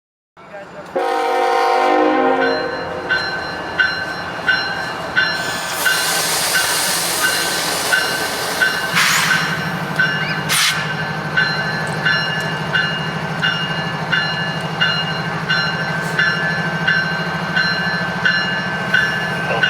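Diesel freight locomotive sounding one short air-horn chord about a second in, then its engine running steadily under a bell-like ding that repeats about every two-thirds of a second.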